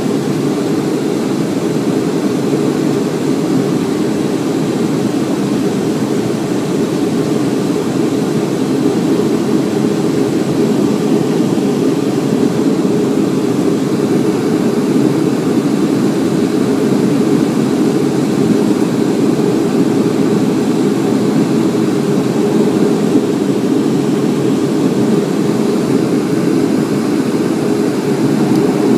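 Steady low roar of a Boeing 757-200's Pratt & Whitney PW2037 turbofans and rushing air, heard inside the passenger cabin beside the wing during descent on approach.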